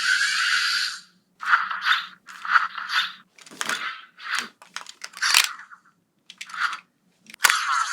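Aurachanger Memorial Edition toy playing its transformation sound effects through its small speaker: a hiss that cuts off about a second in, then about eight short crackly bursts, and a sharp click near the end just before chiming music starts.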